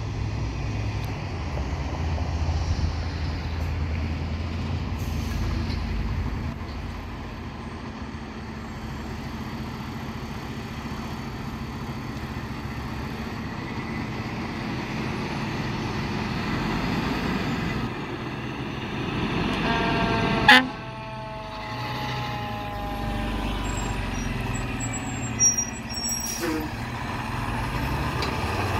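Pierce aerial ladder fire truck's diesel engine running as it pulls out of the station, with a deep rumble that is heaviest at first. About 20 seconds in there is one short, loud blast, followed by a tone that slowly falls over a few seconds. A smaller sharp blip comes near 25 seconds.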